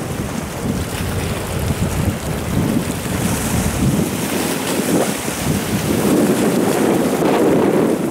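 Wind buffeting the microphone in uneven gusts, over the wash of choppy water.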